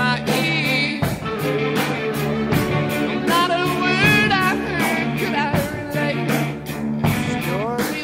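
Rock song with a singing voice holding wavering notes over a steady drum beat.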